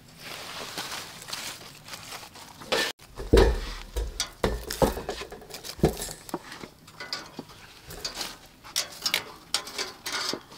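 Grilled corn cobs and metal tongs knocking and clinking on a stainless steel tray as the cobs are set down, in irregular knocks with the heaviest about three and a half seconds in.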